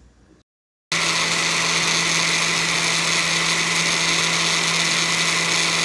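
Oster countertop blender running steadily, puréeing roasted tomatoes, chiles, onion and garlic with a little water into salsa. It starts abruptly about a second in, after a moment of dead silence, and keeps an even motor hum throughout.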